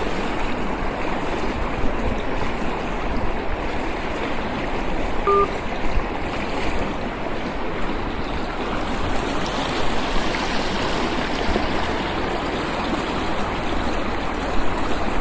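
Fast-flowing river current rushing and splashing over stones, a steady sound with no let-up.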